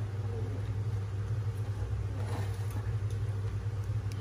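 A steady low mechanical hum, like a motor or engine running.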